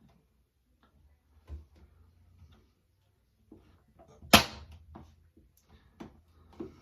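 Plastic wall light switch assembly being handled and fitted: small knocks and clicks, then one loud, sharp snap about four seconds in.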